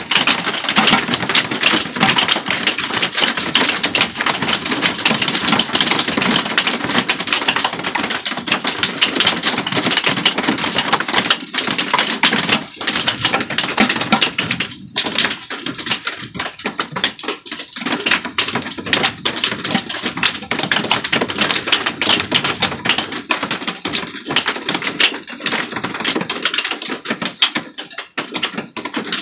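Hail and heavy rain pelting an RV's roof and walls: a loud, dense, unbroken patter of hard taps, thinning briefly about halfway through.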